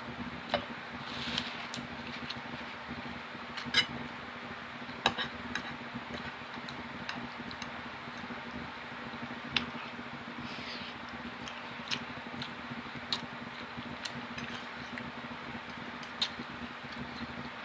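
Cutlery clinking and scraping on a plate in sharp, scattered clicks, with soft eating sounds between them, over a steady low hum.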